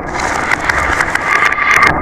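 Marbles rolling along a marble run track, a continuous rolling rattle with scattered small clicks as they knock against the track and each other.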